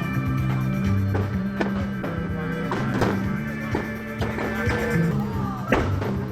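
Music with a drum beat and held notes from guitar or other instruments.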